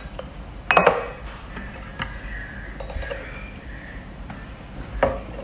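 Clay teacups and teapot lightly clinking and knocking on a wooden tea tray: a few sharp clicks, the loudest about a second in and another near the end.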